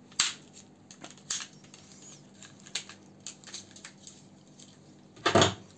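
Scattered light clicks and taps of hand-work on the plastic parts around a car's steering column, over a faint steady hum, with a louder knock near the end.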